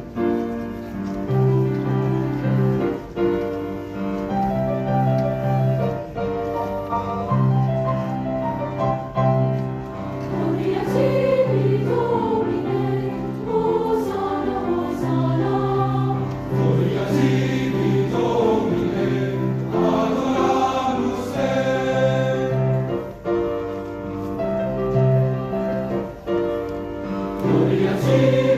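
High school choir singing a choral piece with piano accompaniment. Held piano chords carry the opening, and the voices come forward from about ten seconds in.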